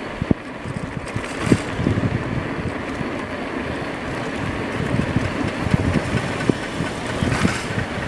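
A2B Metro electric bike being ridden on a paved street: steady road and tyre noise with irregular knocks and rattles from the bike over bumps in the surface.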